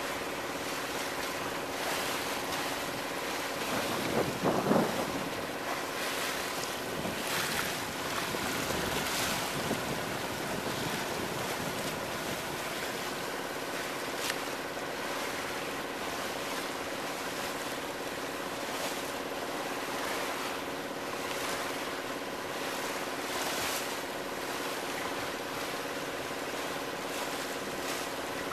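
Wind buffeting the microphone and water rushing along a sailboat's hull under sail, with brief splashes now and then and a louder splash or knock about four seconds in. A faint steady hum runs underneath.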